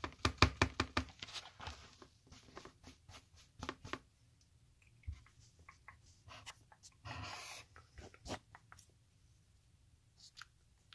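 Makeup items clattering as a hand rummages in a makeup bag: a quick run of loud clicks and rattles for the first second and a half, then scattered clicks. About seven seconds in comes a short brushing swish close to the microphone.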